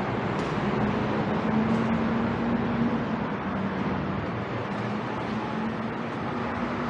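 Steady road-traffic noise on a city street beside an elevated expressway, with a low, steady hum underneath.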